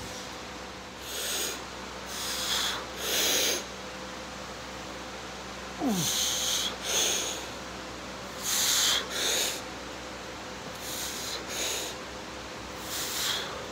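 A person breathing hard in sharp, hissing breaths that come in quick pairs, about five pairs in all, over a steady background hum. A short falling squeak comes about six seconds in.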